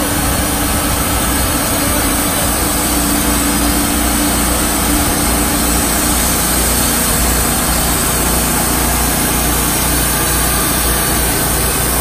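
Wood-Mizer LT35 hydraulic portable sawmill sawing a log: the engine runs steadily under load while the band blade cuts and sawdust blows out of the discharge chute.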